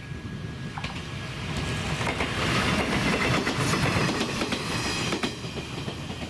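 Echizen Railway MC6001-type electric railcar running past, its wheels clicking over rail joints. The sound swells to its loudest about halfway through and eases off near the end.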